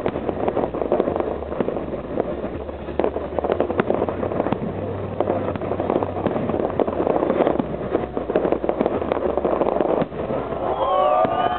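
Fireworks salute: a dense, continuous run of bursts and crackles from many shells at once, with sliding whistles coming in near the end.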